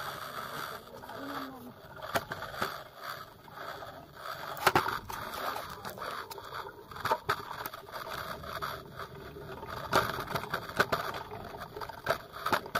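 Bicycle rattling as it rolls over a rough dirt lane, with a steady rolling noise and irregular sharp knocks from bumps every second or two.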